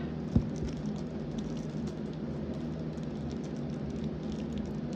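A single thump about half a second in, as an object is set down, then faint crackling and rustling from handling over a steady low hum.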